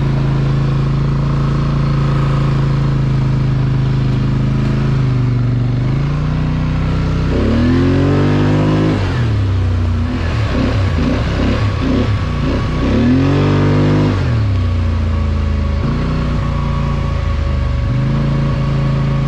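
Polaris Sportsman 850 ATV's parallel-twin engine running under way: steady at first, revving up about six seconds in, its pitch swinging up and down for several seconds, then dropping back to a steady run.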